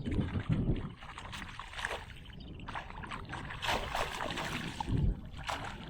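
Water splashing and sloshing around a kayak, with dull knocks on the hull near the start and again about five seconds in.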